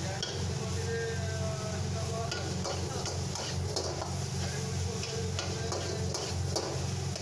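A metal ladle stirring and scraping chopped onion, garlic, ginger and celery leaves frying in oil in a wok, with sizzling and irregular knocks of the ladle against the pan, and the wok tossed near the end. A steady low hum runs underneath.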